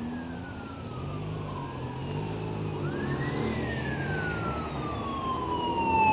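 Police siren wailing, one wail falling away and then another rising quickly and falling slowly, over the engine rumble of a passing police convoy of coaches and motorcycles.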